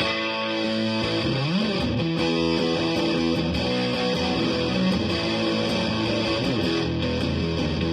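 Electric guitar with a P90 pickup played through a DIY fuzz pedal into a Fender Super Champ amp: a sustained, fuzzy riff with bent notes that comes in abruptly.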